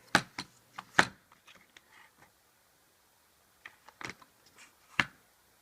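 Handmade puzzle box being handled and turned over: a scatter of knocks and clicks, the loudest about a second in and another near the end.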